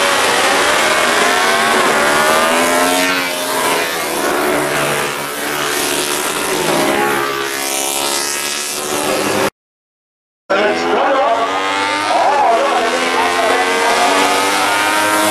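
Racing motorcycles passing at speed on a road course, their engines revving with notes that rise and fall as they go by. The sound drops out for about a second two-thirds of the way through, then another racing motorcycle's engine comes in.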